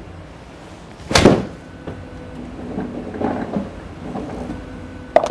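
A golf club striking a ball in a full swing: one sharp, loud crack about a second in. Softer knocks follow, then a quick run of light ringing taps near the end.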